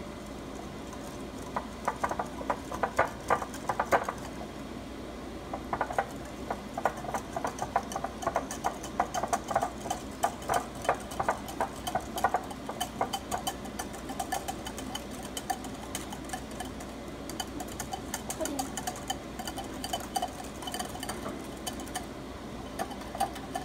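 Wire whisk beating instant pudding mix and milk in a bowl: rapid clicking and tapping of the wires against the bowl, in spells with short pauses.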